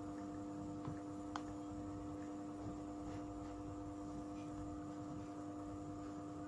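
Steady electrical hum with a couple of faint clicks about a second in.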